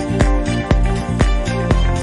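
Background music with a steady beat, about two beats a second, over a strong bass line.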